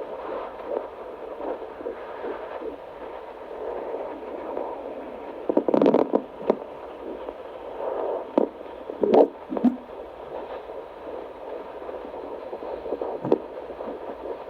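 Handheld fetal Doppler monitor playing an unborn baby's heartbeat through its speaker as a fast, steady run of whooshing pulses. Several loud scratchy thumps cut across it in the middle.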